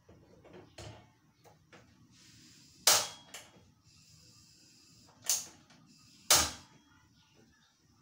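Sharp knocks and clacks of hard objects being handled in a kitchen: three loud clacks, the first about three seconds in and the last two a second apart, with fainter taps and clicks between.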